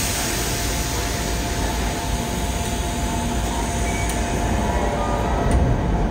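A Blue Line subway train with Mitsubishi GTO-VVVF inverter drive slows to a stop at an underground platform: a steady rumble of wheels and running gear with a faint hum from the drive. Two sharp clicks come near the end.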